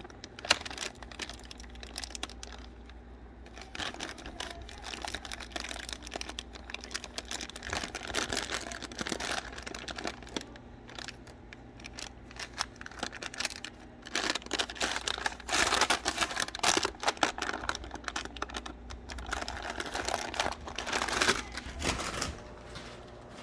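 A plastic bag of cough drops crinkling and rustling as it is handled, with many small clicks and taps throughout. The crinkling is louder in stretches about two-thirds of the way through and again near the end.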